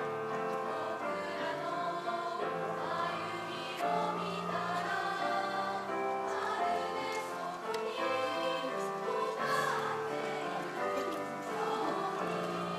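Mixed choir of junior high school boys and girls singing a song in Japanese, with long held notes.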